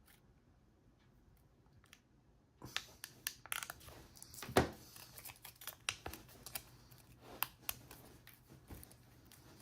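Scissors snipping thin beer-can aluminium sheet, a quick run of sharp clicking snips with light crinkling of the metal, starting about three seconds in after a quiet stretch.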